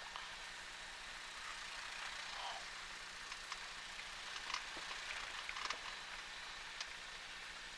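Cessna 172 Skyhawk taxiing with its engine at idle, heard as a faint steady hiss with a few light clicks.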